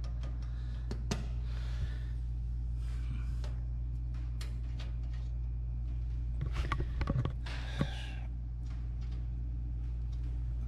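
Handling noise from a metal tent stove being looked over: scattered light knocks and clicks, with a short run of clatter about seven seconds in, over a steady low hum.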